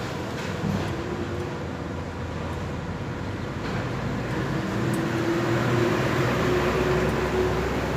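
Steady whirring hum of an electric shop fan and workshop machinery running, with a faint tone that rises slightly in pitch in the second half; no welding arc is burning.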